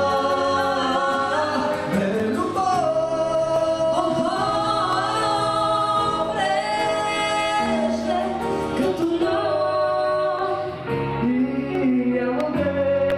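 A woman and a man singing a duet into handheld microphones, their voices amplified.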